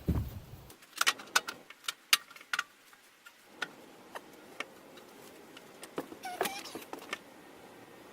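Irregular sharp metallic clicks and clinks from hand work on sheet metal, bunched in the first few seconds and again about six to seven seconds in.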